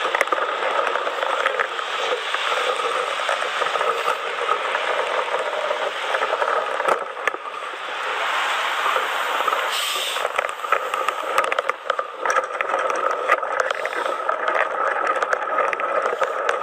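Steady rush of tyre and road noise as a lorry's trailer and wheels pass close by, with a thin steady whine running through it.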